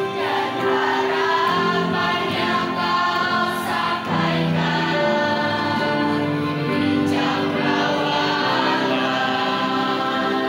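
A children's choir singing a slow song with long held notes over sustained accompaniment.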